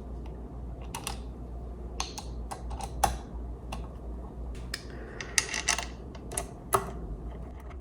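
Irregular sharp clicks and light metallic taps of small screws and parts being handled and set into a stand mixer's metal housing during reassembly, with a quick cluster of clicks about five seconds in. A steady low hum runs underneath.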